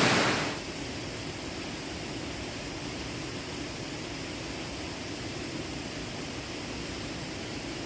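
Steady rush of a waterfall, heard from farther off after a louder, closer rush drops away about half a second in.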